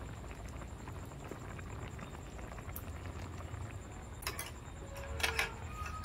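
Curry simmering in a metal pan on a lit portable gas burner, a steady low bubbling hum. Two short clinks come about four seconds in and just after five, the second with a brief ring.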